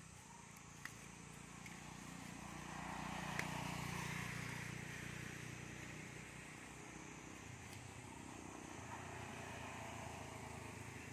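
A motor vehicle passing at a distance: a low engine hum that swells to a peak a few seconds in and then slowly fades.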